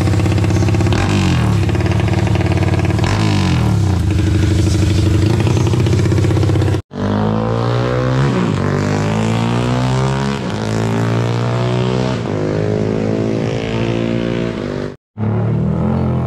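Modified Yamaha Y15ZR motorcycle engine revved hard at high rpm, its pitch dropping and climbing again as it shifts. After a sudden cut about seven seconds in it is heard again ridden hard, the pitch sliding and swinging, with another sudden cut near the end.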